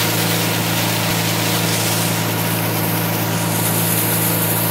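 Motorboat engine running steadily at a constant speed.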